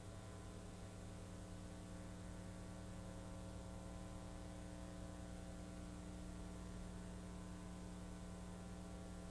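Steady electrical mains hum with many harmonics and faint hiss, low in level, running unchanged with no other events.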